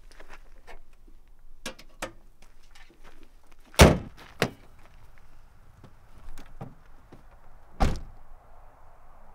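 Honda Civic's hood slammed shut about four seconds in, then light steps and a car door shut with a thud about eight seconds in. Smaller knocks and clicks come in between.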